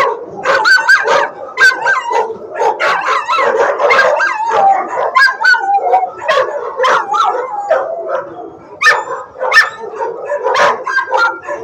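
Many shelter dogs barking, yipping and howling at once in a kennel block, a dense overlapping din of sharp barks and rising and falling howls without a break.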